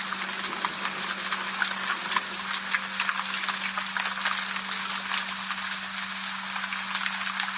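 Steady rain with dense patter and many individual drops ticking sharply on a hard surface, over a constant low hum.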